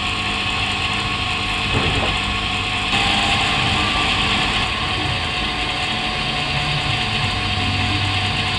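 Model B class diesel locomotive running with a goods train: a steady mechanical hum with a hiss above it, shifting slightly about three seconds in.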